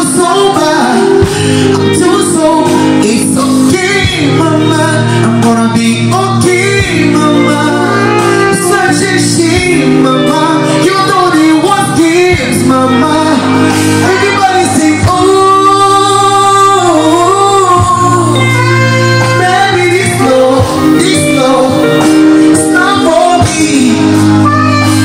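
Live band music with singing, the voice bending through long held notes over a steady low bass line.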